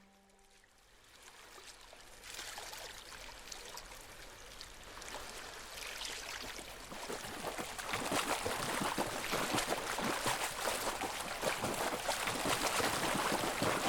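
Rushing, trickling noise like running water, starting about a second in and slowly growing louder.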